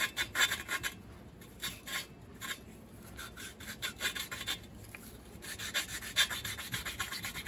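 Exhaust valve of a Briggs & Stratton 5 hp flathead engine being lapped into its seat with grinding compound: a lapping stick spun back and forth between the palms, the valve grinding against the seat in bursts of quick, raspy scraping strokes, thinning out in the middle.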